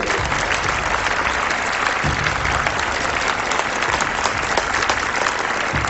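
Audience applauding: many hands clapping in a dense, steady patter that breaks out suddenly at the start.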